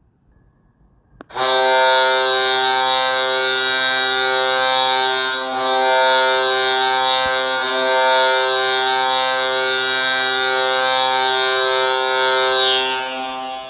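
Ice hockey goal horn played back from a phone app: one long, loud horn blast that starts about a second in, holds steady for roughly twelve seconds and fades out near the end.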